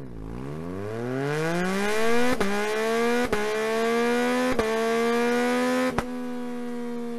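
2021 Yamaha MT-09's 890 cc crossplane inline-three engine with an Akrapovič Racing Line carbon exhaust, running loud. Its pitch rises over the first few seconds and then holds high. Sharp cracks cut through it about four times, and it gets somewhat quieter near the end.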